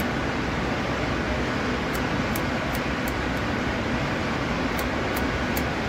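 Scissors snipping the pile of a hand-knotted carpet, short crisp cuts in runs of three to five, about three a second, over a steady loud background hiss.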